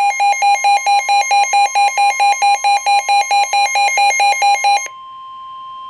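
Emergency weather alarm for a flash flood warning: a fast pulsing beep, about nine beeps a second, over a steady warning tone near 1 kHz. The beeping stops about five seconds in, leaving the steady tone alone at a lower level.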